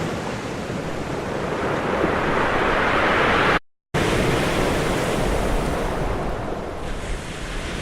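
Ocean surf: waves breaking and washing on the shore in a steady rush, with a brief gap of silence a little before halfway where one recording gives way to the next.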